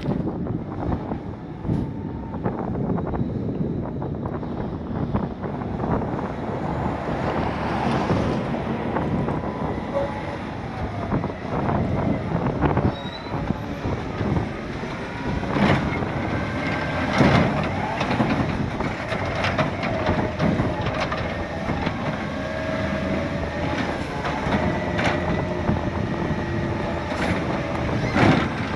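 Garbage truck's diesel engine running as it pulls up beside curbside cans and works them, with a steady hydraulic-like whine in the second half and several loud clanks about halfway through and again near the end.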